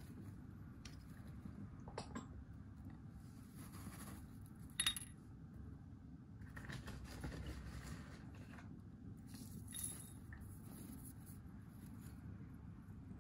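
Faint sound of a dwarf hamster rustling and shuffling through wood-shaving bedding, with a few light clinks of its small ceramic dishes. The sharpest clink comes about five seconds in.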